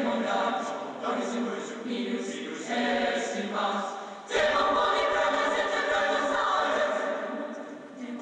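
Choral music soundtrack: a choir of voices singing held chords that change every second or so, swelling louder a little over four seconds in.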